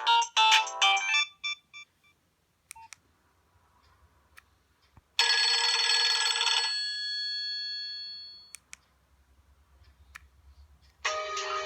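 Nokia 2610 ringtones playing from the phone's speaker. One melody ends about a second in, followed by a few faint clicks. About five seconds in, a short, bright burst of tones rings out and fades over a couple of seconds, and a new tune starts near the end.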